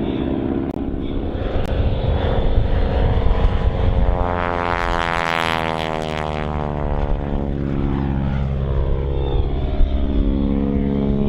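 Propeller biplane's piston engine on a low, close pass: the engine note swells to its loudest about five seconds in and its pitch falls as the plane goes by, then it drones on steadily as the plane pulls up into a climb.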